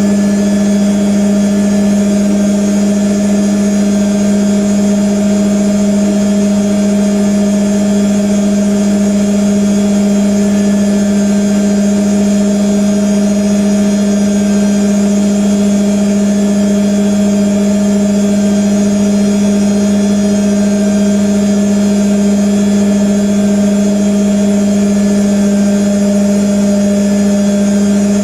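IKEA RENLIG IWM60 washing machine spinning at a constant high speed: a loud, steady hum from the motor and drum with no change in pitch. The spin still sounds a bit screechy, which the owner puts down to rough motor bearings.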